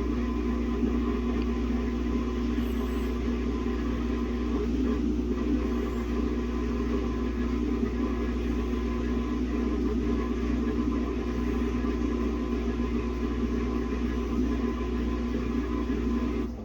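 Samsung WA50R5200AW top-load washing machine spinning a single pair of pants, a badly unbalanced load, with a steady motor and drum hum.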